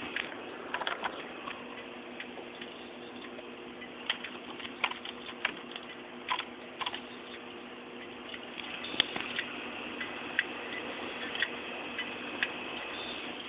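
Desktop computer running with a steady hum, overlaid with irregular sharp ticks and clicks.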